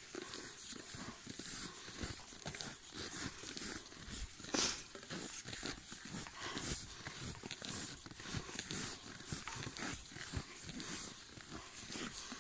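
An American bulldog and a miniature pinscher moving through deep snow: their steps and breathing make a quick, uneven run of short noises, with one louder sound about four and a half seconds in.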